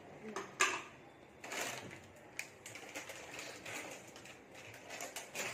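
Scattered clicks and knocks of kitchen utensils and containers being handled at the counter, the sharpest about half a second in.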